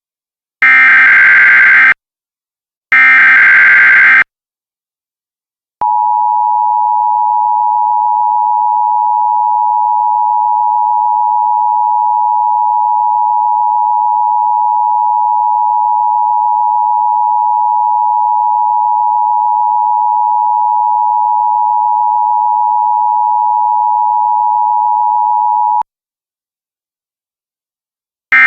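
Emergency Alert System warning tones. Two short, harsh digital data bursts (the end of the SAME header) come first. After a brief pause, the two-tone attention signal holds steady for about twenty seconds and then cuts off, and another short data burst begins at the very end.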